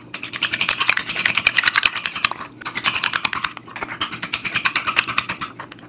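Wooden spoon beating eggs in a glass Pyrex measuring cup: rapid clicking of the spoon against the glass, in three runs broken by brief pauses about two and a half and three and a half seconds in.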